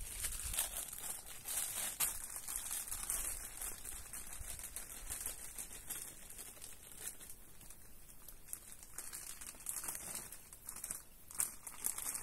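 Plastic bag crinkling and rustling on and off as it is handled and shaken out, with a few sharp clicks.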